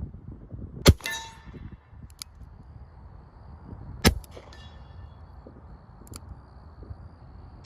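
Revolver firing two shots about three seconds apart, each a sharp crack with a short ringing tail, with a faint click between them.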